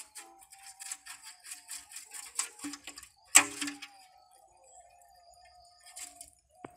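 Water and small fish dripping and pattering from a ring net trap shaken out into a pot: a quick run of small clicks and drips, then one louder hit about three and a half seconds in and two smaller ones near the end.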